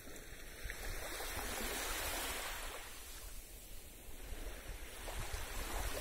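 Small waves of a calm sea washing onto a sandy beach: two gentle swells of surf noise, one about a second in and another near the end, with a lull between.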